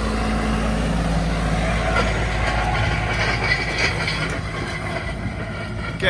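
John Deere 6130R tractor engine running steadily as it pulls a set of Cambridge ring rollers over the loose soil, with the rumble and rattle of the rollers underneath.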